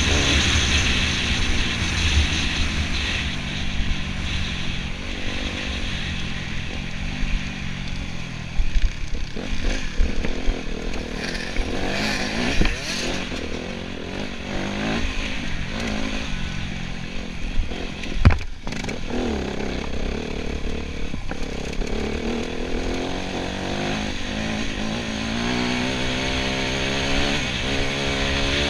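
Enduro motorcycle engine running under changing throttle, its pitch rising and falling as it is ridden off-road, with a sharp knock about eighteen seconds in. The pitch climbs steadily near the end as it revs up.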